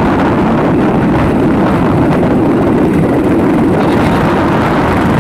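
Steady wind rush on the microphone mixed with vehicle engine and road noise, from riding along the road at speed.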